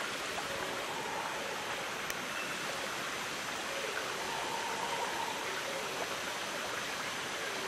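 Steady, even rushing noise with no distinct events, and a few faint short tones about a second in and again four to five seconds in.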